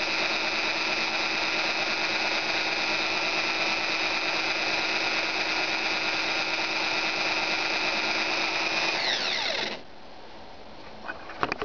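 Electric drill running at a steady high speed with a whine, then released: its motor spins down with a falling pitch about nine seconds in. A few sharp clicks follow near the end.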